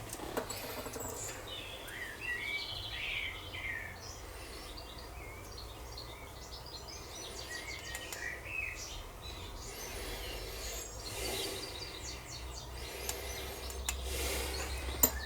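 Birds chirping in short bursts under a low background hiss, with scattered handling noises and a sharp click near the end.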